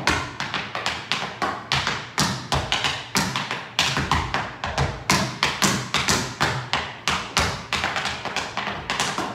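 Metal-plated tap shoes striking a wooden floor in a steady run of tap steps, several sharp taps a second, with some heavier stamps among them.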